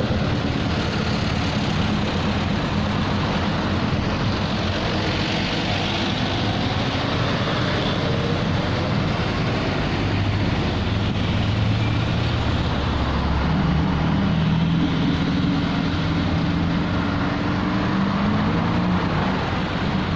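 Steady mechanical din of vehicle engines running in the street, with a deeper engine hum standing out in the second half.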